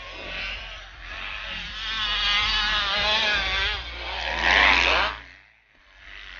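Motocross bike engines revving hard as riders race past on the track, the pitch wavering up and down with the throttle. The sound is loudest about four and a half seconds in, then drops away sharply.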